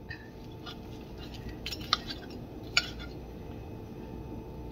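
A metal fork clinking and scraping lightly on a ceramic plate while cutting into a pancake, with a few sharp clicks about two and three seconds in.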